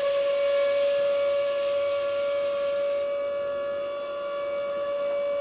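A machine running at a constant speed, giving off a steady whine at one pitch with a ladder of overtones.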